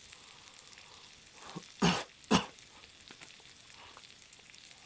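Faint steady sizzling of garlic shrimp in a small cast-iron skillet, the food still hot and steaming. About two seconds in come two short, loud puffs of breath half a second apart.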